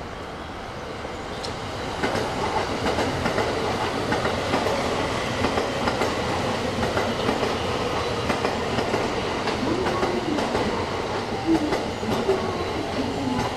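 JR West 225-series electric train pulling into the platform, its wheels clacking over rail joints and points. It grows louder about two seconds in as it draws near.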